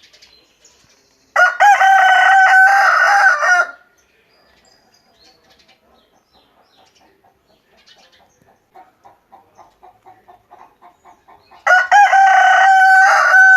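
Free-range backyard rooster crowing twice, two long, loud crows about ten seconds apart, with faint, quick clucking in between.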